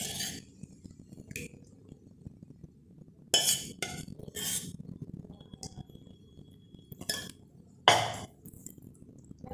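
A metal spoon clinking against a stainless-steel pan, several short sharp knocks scattered through, with quiet gaps between them.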